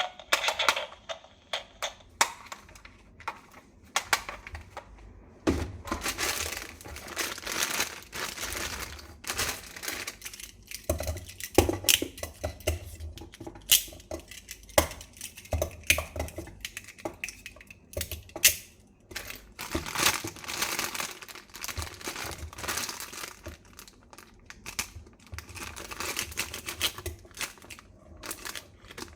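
Plastic packaging crinkling and rustling as a toy gun set is unboxed, mixed with irregular sharp clicks and knocks of plastic parts being handled.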